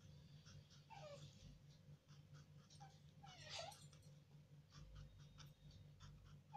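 Near silence: faint felt-tip marker taps and strokes on paper, over a steady low hum. Two faint, short, falling animal cries come about a second in and again midway.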